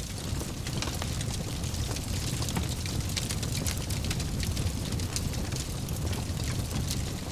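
Fire burning in a fireplace, crackling: a steady low rumble of the flames with many small, sharp pops and snaps scattered through it.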